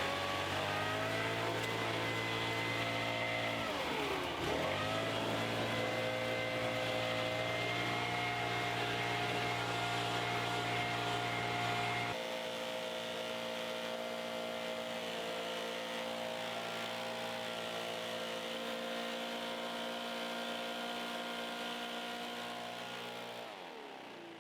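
A motor running at a steady speed. About four seconds in it dips briefly and recovers, its low hum drops away about halfway through, and near the end it winds down and stops.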